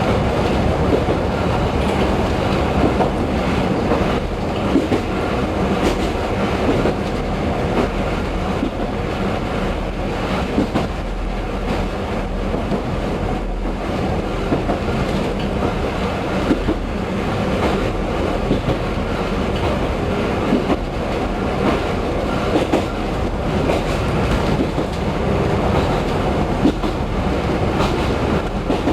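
Diesel railcar running along the line, heard from the front of the train: a steady running noise with wheels clicking over the rail joints.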